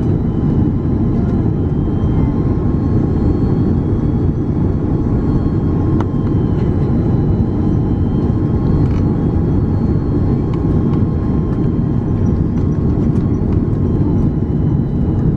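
Airbus A330-300 cabin noise on short final approach: a steady roar of the engines and the airflow over the airframe, with a faint steady high whine above it.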